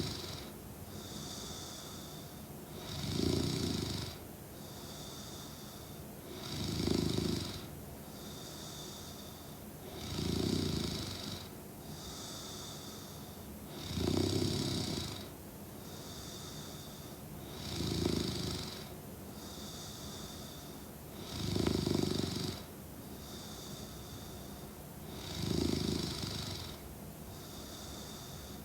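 A woman snoring steadily in deep sleep. There are eight deep, rasping snores, about one every three and a half to four seconds, with a softer breath between each.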